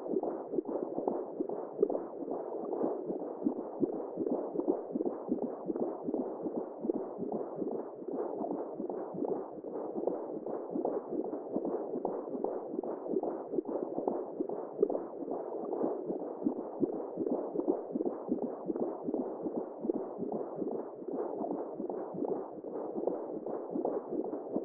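Womb sound for soothing a baby: a steady, muffled whooshing noise with nothing high-pitched in it, like blood flow heard from inside the body.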